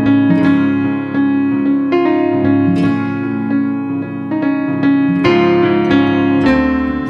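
Instrumental background music led by a keyboard melody of struck notes over held chords.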